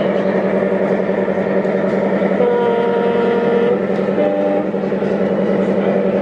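Sound-fitted (DCC) model locomotive running with a steady drone. Its horn sounds twice: a long note about two and a half seconds in, then a shorter, lower note just after four seconds, like a two-tone diesel horn.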